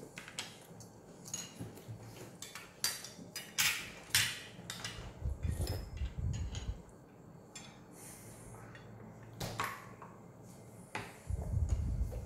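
Forks and spoons clinking and scraping against plates and bowls during a meal, with a quick run of sharp clicks in the first few seconds and a few more later. Dull low bumps come in twice, around the middle and near the end.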